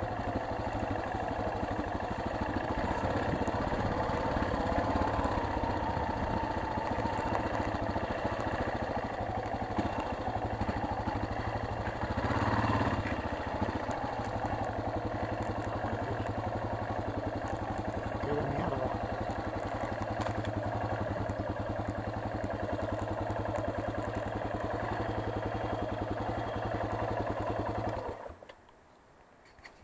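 Yamaha XT600's single-cylinder four-stroke engine running steadily while the motorcycle rides slowly along a rough path, briefly louder about twelve seconds in, then switched off near the end.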